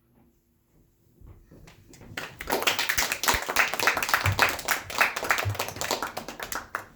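Audience applause: many hands clapping, building up from about a second in and stopping abruptly near the end.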